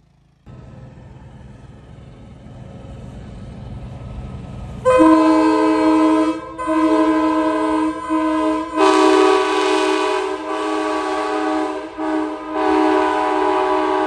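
Rebuilt 1994 Nathan Airchime K5LA five-chime train horn sounding its chord in a series of long blasts with short breaks, starting about five seconds in. Before it, a low rumble builds steadily.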